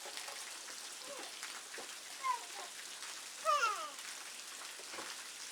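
Steady rain pattering, a fine constant hiss of drops. Two short cries falling in pitch cut through it, about two seconds in and again at about three and a half seconds.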